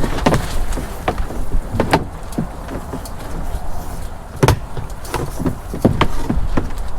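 A string of irregular knocks and clunks, a few louder ones among lighter taps, over a low rumble.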